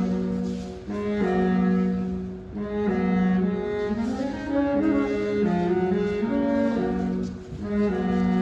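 A high school indoor winds ensemble playing slow music, held low chords moving in phrases with short breaks between them.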